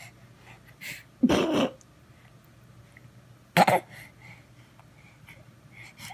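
A baby coughing and gagging twice, short and throaty, about a second in and again past three and a half seconds, as it reacts to a spoonful of food.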